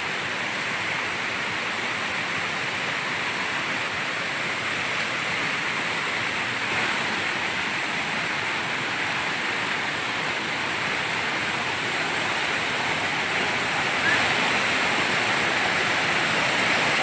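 Fast-flowing mountain river rushing over boulders in white-water cascades, a steady rush of water that grows a little louder near the end.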